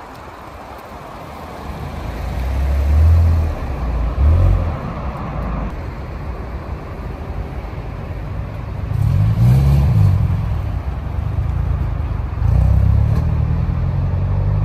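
Car engines moving off at low speed. A few seconds in, one runs up loudly twice. About nine seconds in, the blue Subaru Impreza WRX STI's turbocharged flat-four blips its revs up and back down, then pulls away in low gear near the end.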